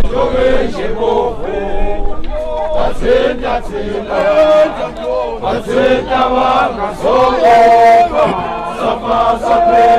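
Group of Zulu men chanting a traditional song together, many voices in unison with long held notes.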